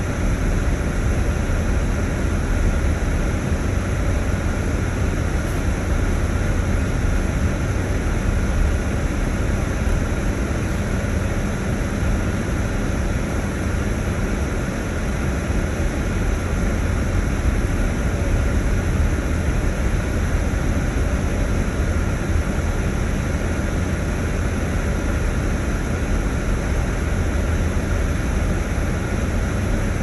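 Gas snowblower engine running steadily as it clears snow, a continuous motor drone with a heavy low rumble.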